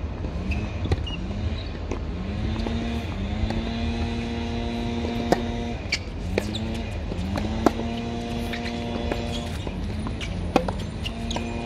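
Tennis balls struck by rackets during a rally, sharp pops a second or two apart, the loudest about a third of the way in, two-thirds in and near the end. Under them an engine drones, its pitch sliding up and then holding steady several times over.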